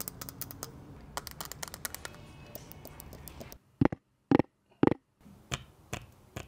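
Background music with a low steady drone and fine ticking clicks. About four seconds in, it drops out for three short, loud knocks about half a second apart, which are fingers tapping the phone in its case. Faint clicks of handling follow.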